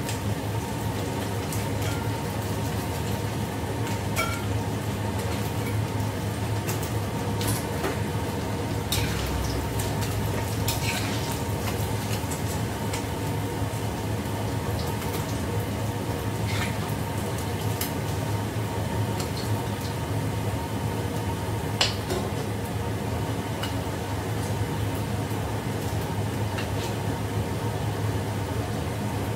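Battered pieces deep-frying in oil in a wok, under a steady low hum, with occasional clinks of a metal mesh strainer and ladle against the wok. The sharpest clink comes about 22 seconds in.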